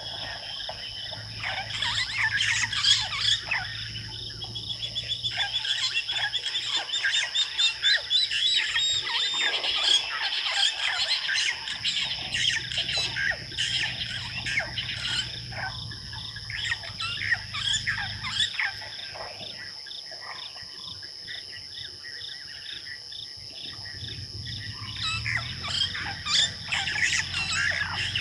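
Bush chorus of several birds calling and chirping, with a fast run of repeated notes a few seconds in, over a steady high insect drone such as crickets.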